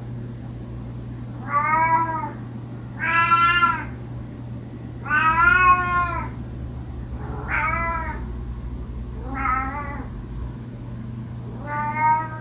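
A domestic cat meowing repeatedly, six drawn-out meows spaced a second or two apart, each rising and then falling in pitch, over a steady low hum.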